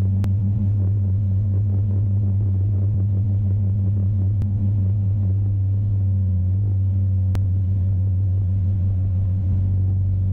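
Motorglider's engine and propeller droning steadily at an even pitch, with a few faint clicks.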